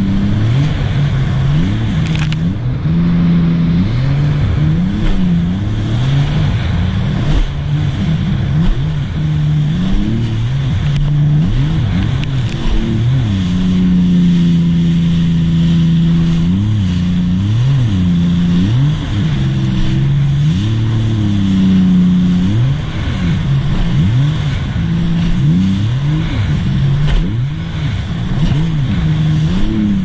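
A 2018 Sea-Doo RXT-X 300 personal watercraft running under way: its supercharged three-cylinder Rotax engine, fitted with a Riva Racing free-flow exhaust, is loud and continuous, its pitch rising and falling every second or two.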